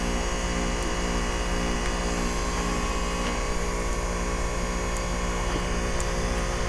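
2003 Carrier TECH2000 4-ton heat pump running steadily in its defrost cycle, a constant mechanical hum with several fixed tones over an even whoosh as the frozen outdoor coil is melted off and steams.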